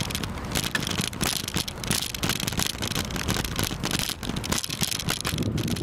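Bicycle riding along a path with the camera mounted on it: continuous dense rattling of the bike and mount, with wind buffeting the microphone.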